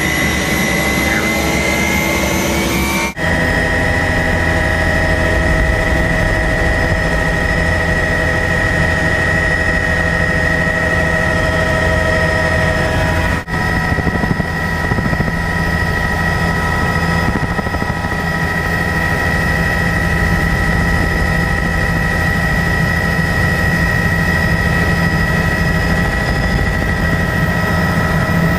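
Turbine helicopter running at lift-off power: a steady high turbine whine over the rotor noise. The whine rises slightly in pitch over the first few seconds. The sound breaks off abruptly twice, about 3 s in and again near the middle.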